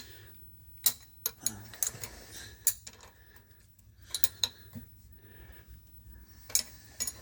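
Spanner working on the bolts of a metal shaper as they are nipped up: irregular sharp metallic clicks and light taps, about ten of them.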